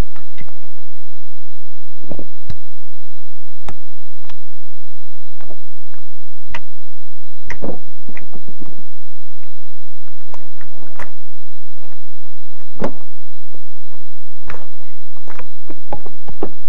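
Irregular sharp knocks and clatters of loose rocks, about one a second, as someone climbs over a stony scree slope.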